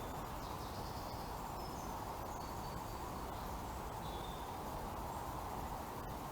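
Outdoor park ambience: a steady background hiss with a few faint, short, high bird chirps scattered through it.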